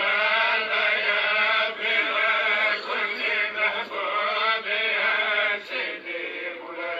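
A male voice chanting in long, wavering held notes, with short breaks between phrases.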